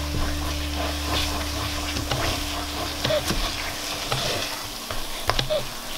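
Wooden spoon stirring and scraping thick semolina halva in a stainless steel pot as it cooks down and absorbs the milk, with soft sizzling and a few light knocks of the spoon against the pot. A steady low hum stops about three and a half seconds in.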